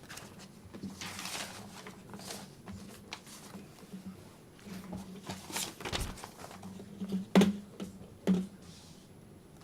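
Handling noises in a quiet room: scattered rustles and light clicks over a low steady hum, with two sharp knocks about a second apart near the end.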